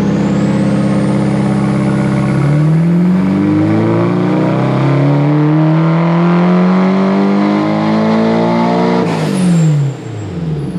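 Nissan SR20DET turbocharged 2.0-litre four-cylinder in a 240SX S14 making a dyno pull. It holds steady revs for about two seconds, then climbs evenly through the rev range under full throttle for about six seconds. About nine seconds in the throttle closes with a short whoosh and the revs fall away. A high whistle rises over the first few seconds.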